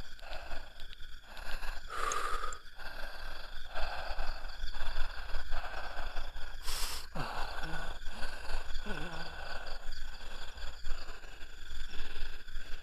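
Steady chorus of night insects, with rustling and handling noises and two short, louder noises about two and seven seconds in.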